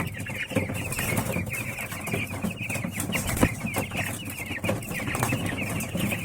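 A brood of broiler chicks peeping steadily, many short falling chirps overlapping, with scattered sharp clicks and one louder click about three and a half seconds in.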